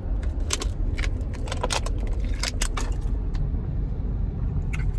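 Steady low road rumble inside a moving car, with several short sharp clicks scattered through it.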